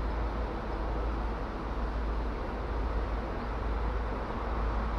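Steady outdoor background noise: an even, unbroken deep rumble with a hiss over it.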